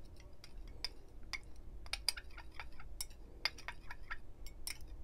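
Thin metal stirring spoon clinking and scraping against the inside of a small glass cup, in quick, irregular light clinks several times a second, as mineral salts are stirred into water to dissolve.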